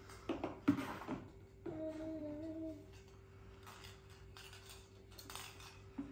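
A few knocks and clatter of handled objects, then a person briefly humming one note for about a second, with light rustling afterwards.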